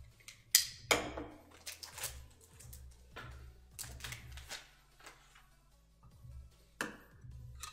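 Hands handling trading cards and hard plastic card holders on a table: a loud clack about half a second in, then a string of lighter clicks and taps, with another sharp click near the end. Background music with a low beat plays underneath.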